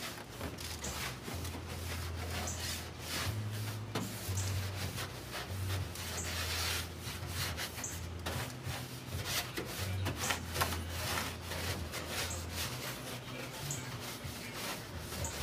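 A detailing brush scrubbing the wet underside of a car hood in repeated back-and-forth strokes, bristles rubbing on painted sheet metal slick with all-purpose cleaner. A low hum comes and goes underneath.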